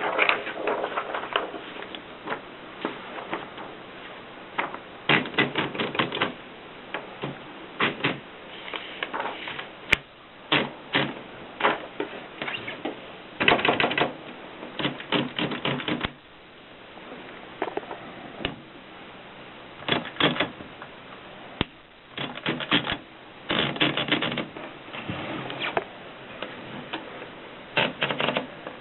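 Groma Kolibri portable typewriter being typed on: runs of quick, sharp keystrokes in short bursts, broken by brief pauses.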